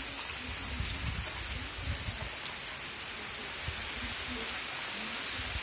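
Steady rain falling on trees and a muddy dirt yard, an even hiss with scattered drop ticks.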